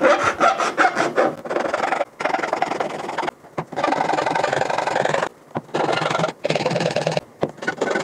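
Flat metal hand file rasping along the cut edge of a PVC foam sheet to smooth it, in repeated strokes of about a second each with short breaks between them.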